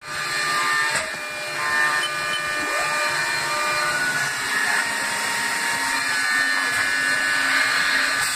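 2007 Haas SL-30 CNC lathe running, its spindle turning the three-jaw chuck: a steady mechanical whir with several high whining tones.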